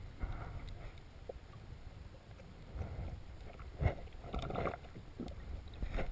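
Muffled underwater water noise picked up by a camera held underwater while snorkeling: a low rumble of moving water, with a few brief louder swishes in the second half.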